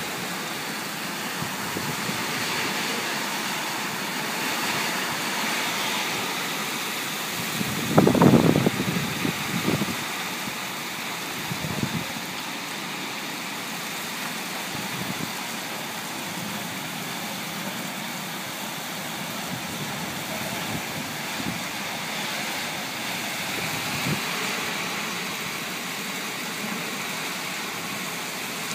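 Heavy rain pouring steadily, with a brief low rumble about eight seconds in.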